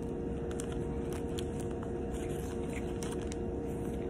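A person biting into and chewing soft bread, faint mouth clicks, over a steady low hum.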